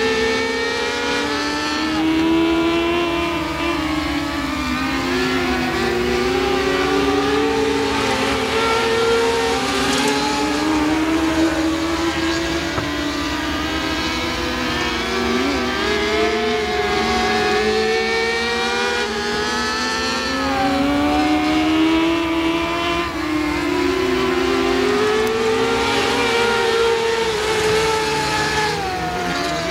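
Mini sprint race cars running laps on a dirt oval, two or more engines heard together, their pitch rising and falling over and over as they accelerate and back off around the track.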